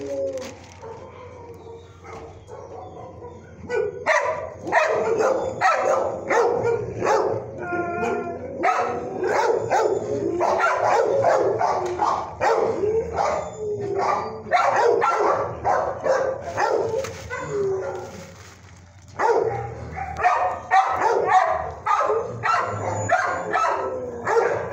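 Several dogs barking in rapid, overlapping volleys, starting about four seconds in, dropping off briefly near the end, then picking up again.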